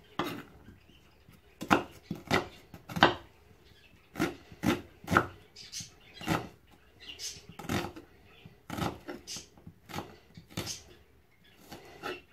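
Kitchen knife chopping onion on a wooden cutting board: irregular knocks of the blade on the board, about one or two a second.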